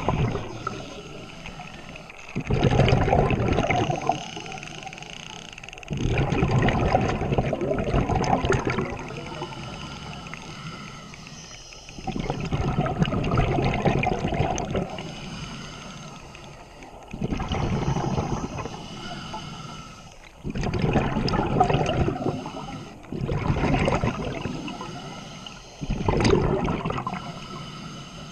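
Scuba regulator breathing heard underwater: a loud bubbling rush of exhaled air every few seconds, each lasting two to three seconds, with quieter gaps between breaths.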